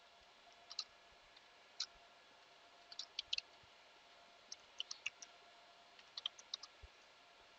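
Faint computer key clicks, about twenty short, sharp clicks coming in small groups of two to four with pauses between.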